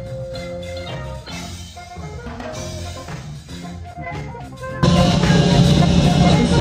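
Background music with a beat; about five seconds in it cuts to a louder, denser section with heavy bass.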